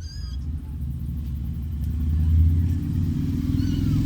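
A motor vehicle's engine running nearby, a low rumble that grows louder and peaks a little over halfway through. A brief high-pitched call sounds right at the start.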